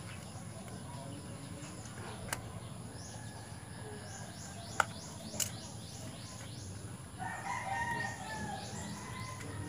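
A rooster crows once, about seven seconds in, over small birds chirping in quick repeated notes; a few sharp clicks come earlier.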